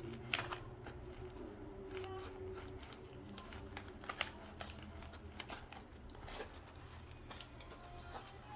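Knife cutting and picking at a running shoe's foam midsole to free the carbon plate inside: faint, scattered clicks, crackles and tearing sounds over a low steady hum.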